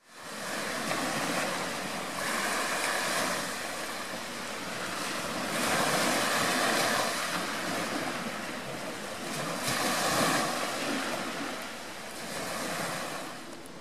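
Small sea waves breaking and washing up a pebble beach, swelling and fading every three to four seconds.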